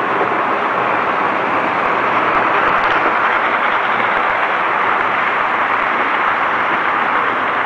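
Märklin model trains running around the layout's track loops: a steady whirring rattle of small wheels and electric motors on the rails.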